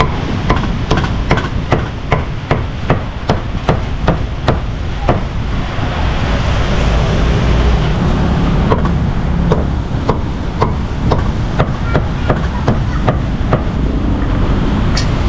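Heavy meat cleaver chopping roast beef on a thick round wooden chopping block: a fast, even run of sharp strokes, about three a second, that stops for a few seconds midway and then starts again.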